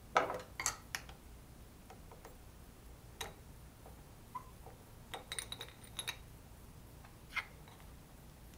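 Scattered light clicks and taps of small metal parts being handled on a mini lathe's tailstock: a screwdriver, screws and a small milled bracket. A quick run of clicks comes about five to six seconds in.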